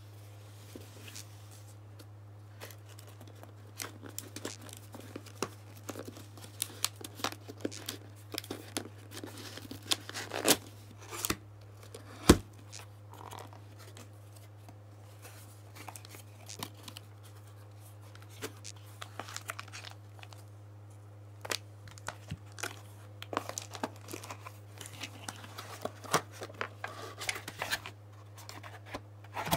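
Cardboard shipping box being opened by hand: packing tape tearing and cardboard flaps rustling and scraping in irregular bursts, with one sharp knock about twelve seconds in. A steady low hum runs underneath.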